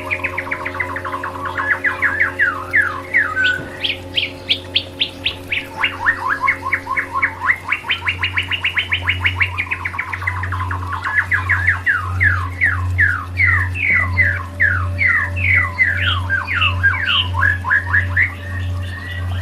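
A songbird singing long, rapid trills of repeated notes, with slower separate down-slurred notes in the later phrases. A steady low hum runs underneath.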